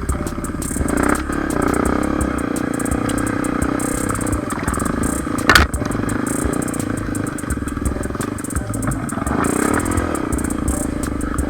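Motorcycle engine running steadily, with a sharp knock about five and a half seconds in.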